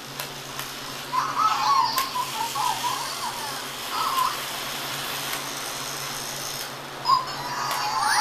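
Zhu Zhu Pets robotic toy hamsters giving several short electronic warbling chirps as they run about, with a few light clicks over a steady low hum.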